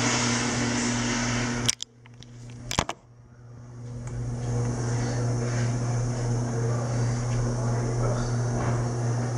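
Steady mechanical whirring hum with a rushing air noise, broken about two seconds in by a couple of knocks as the camera is handled and set down on the counter. The hum drops away after the knocks and swells back over the next couple of seconds.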